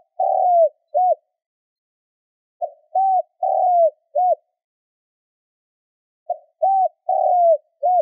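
Spotted dove cooing its song: a phrase of four notes (a short note, an arched coo, a longer coo that falls away, and a short arched coo) repeated about every three and a half seconds, with the first phrase already under way and the last cut off at the end.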